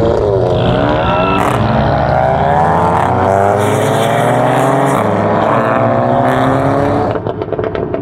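Car engine accelerating hard as the car pulls away, its note rising steadily for several seconds. About seven seconds in it lets off and drops into a quieter, rapid crackling.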